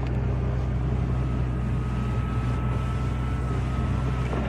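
Electric sunroof motor running, a thin steady whine starting about a second in and stopping shortly before the end, over a steady low hum.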